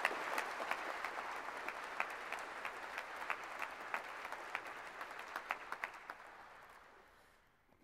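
Audience applauding, a dense patter of hand claps that thins out and dies away over the last second or two.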